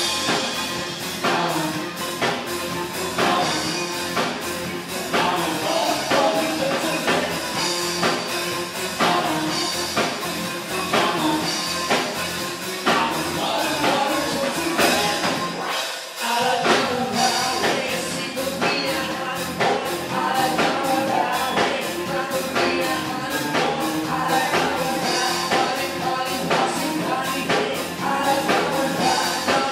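Live band playing an upbeat dance-rock song with drum kit, electric guitar, keyboard and female lead vocals. The bass and drums drop out briefly about halfway through, then the full band comes back in.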